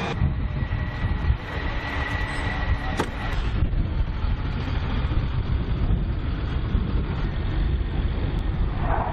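Armored military trucks (M-ATV MRAPs) driving, their diesel engines running with a steady low rumble. A single sharp click about three seconds in.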